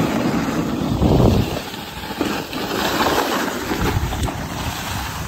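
Wind buffeting the microphone over the rough, rumbling scrape of a plastic bob sled sliding fast over snow.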